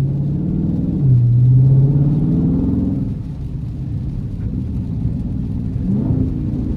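Dodge Charger Scat Pack's 6.4-litre 392 HEMI V8 heard from inside the closed cabin while driving. Its pitch rises about a second in, eases off partway through, and climbs again near the end.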